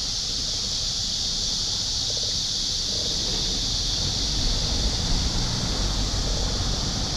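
Wind rumbling on the microphone during a slow ride, under a steady high-pitched hiss.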